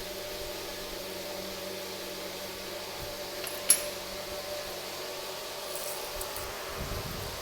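Steady mechanical hum with a constant tone, broken by one sharp click about three and a half seconds in.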